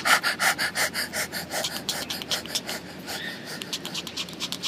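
Rapid dog-style panting, an even run of short breaths at about five a second, loud at first and softer in the second half.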